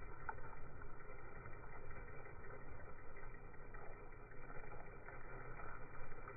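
Radio-controlled SCX10 crawler's 550-size 35-turn brushed motor and drivetrain running at low speed as the truck creeps over leaf litter, a steady but uneven mechanical hum.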